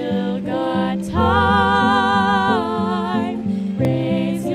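A song: a singing voice holds one long note with vibrato about a second in, then goes into shorter phrases, over a gentle plucked-guitar accompaniment.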